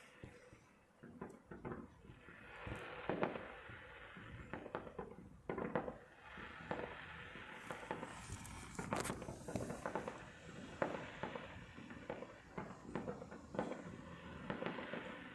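Distant fireworks going off: many irregular pops and crackles over a hissing fizz, with louder bangs every few seconds.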